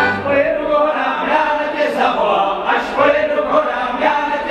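A group of voices singing a Czech folk song together, unaccompanied, the instrumental bass dropping out about half a second in.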